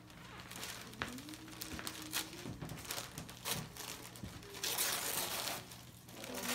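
Wrapping paper being torn and crinkled by hand as a gift is unwrapped. It comes as a run of rustles and sharp rips, with the loudest and longest tear about five seconds in.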